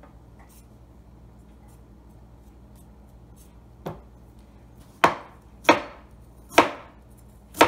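Chef's knife slicing through fresh ginger and striking a plastic cutting board: a light knock about four seconds in, then four sharp chops about a second apart.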